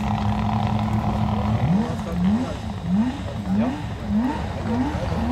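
Porsche 911 rally car's flat-six engine held at steady revs, then revved in quick repeated rising bursts, about two a second, as the car barely moves.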